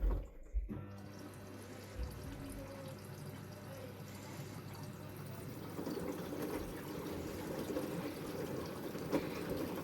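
Samsung washing machine on its wash cycle: water sloshing in the turning drum, a steady swishing that grows slightly louder about six seconds in.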